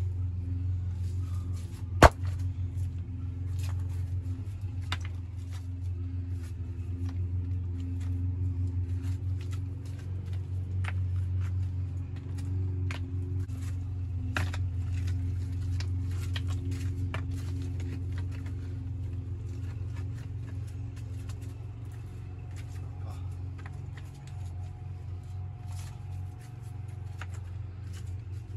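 Rough building stones knocking and clinking as they are handled and bedded in a dry stone retaining wall's footing, with one sharp stone-on-stone knock about two seconds in, over a steady low hum.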